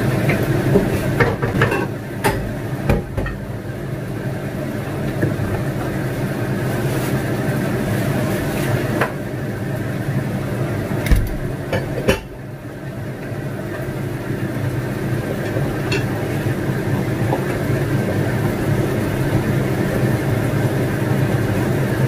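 Steady hum of a kitchen range hood exhaust fan, with scattered clinks and knocks of dishes and containers being handled, most of them in the first few seconds and again around the middle.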